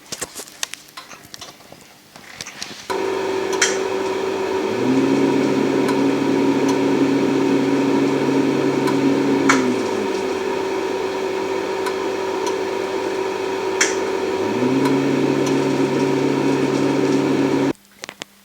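A few light clicks, then about three seconds in a BMI 621D krypton arc-lamp-pumped Nd:YLF laser system starts running with a steady loud hum and a fixed tone. A deeper hum comes in twice for a few seconds, and the whole hum cuts off suddenly shortly before the end.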